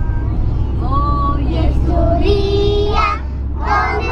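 Young children singing together, with long held notes, over the steady low engine and road rumble of the minibus they are riding in.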